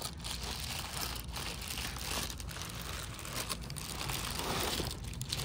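Reflectix foil-faced bubble insulation, cut as a windshield cover, crinkling and rustling as it is folded up by hand.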